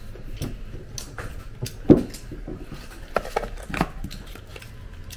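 Hands rummaging in a cosmetics gift box lined with tissue paper: small knocks, clicks and rustles as the product boxes are handled, with one sharper knock about two seconds in.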